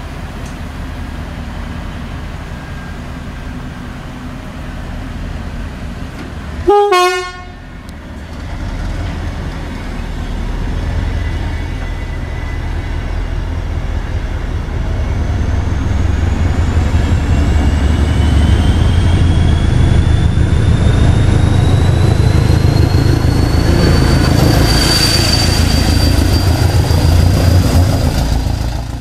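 Train horn giving one short two-tone blast, about half a second long, followed by a train running with a low rumble that grows louder and a whine that slowly rises in pitch as it picks up speed.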